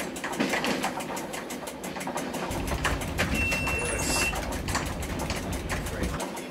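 Train running along the track, heard in the driver's cab: a fast, even clicking over the running noise, with a low rumble that comes in about two and a half seconds in and drops away near the end. A short, steady, high beep sounds once, about three seconds in.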